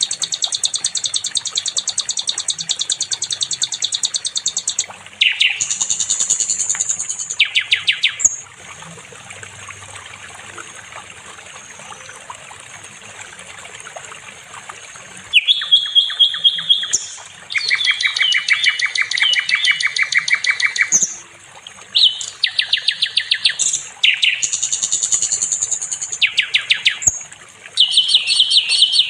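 Sikatan londo, a flycatcher, singing long, fast, high-pitched trilled phrases of several seconds each, with a quieter pause in the middle.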